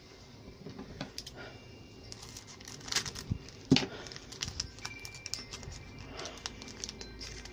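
Foil wrapper of a Pokémon Detective Pikachu booster pack crinkling and tearing as it is opened by hand, with the sharpest rips about three and nearly four seconds in.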